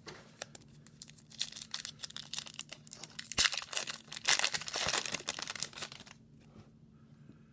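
Foil wrapper of an Upper Deck hockey card pack being torn open and crinkled by hand, a dense crackling that is loudest in the middle, with one sharp crack about three and a half seconds in, then dying away.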